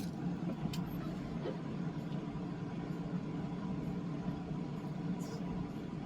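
A steady low mechanical hum with a faint higher tone running through it, and a few faint clicks.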